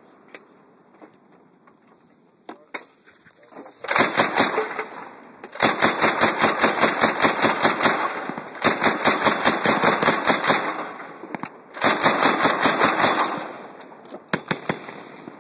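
Mk19 40 mm automatic grenade launcher firing four bursts of about five shots a second, each burst one and a half to three seconds long, starting about four seconds in.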